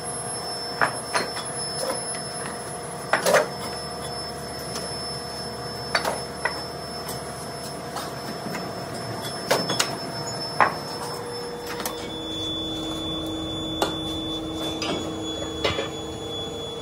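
Heavy steel clamps being handled and set onto a steel sand-casting mould box: irregular sharp metal clanks, about ten, over a steady machine hum.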